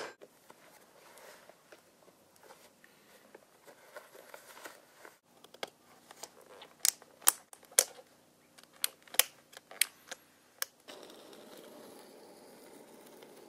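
Inline skates being put on: laces and straps rustle, then a string of sharp, irregular clicks as the skate buckles are fastened. About eleven seconds in, a steady faint rushing noise takes over.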